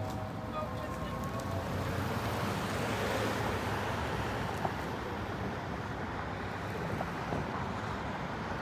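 Steady rushing noise of street traffic, swelling a little a few seconds in.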